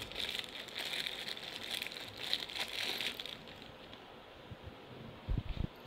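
Padlock packaging crinkling and crackling as it is handled for about the first three seconds, then quieter, with a few low knocks near the end.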